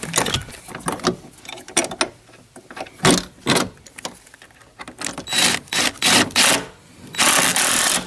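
Clicks and knocks of a bolt and seat-belt hardware being handled and fitted, then a cordless impact driver running the bolt in, first in a few short bursts and then hammering for about a second near the end as it snugs the bolt tight.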